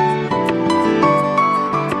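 Instrumental background music, a steady run of notes.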